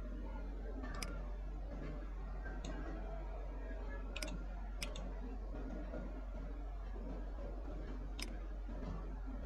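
Computer mouse clicking four separate times: once about a second in, twice close together around four seconds in, and once near the end. A steady low hum runs underneath.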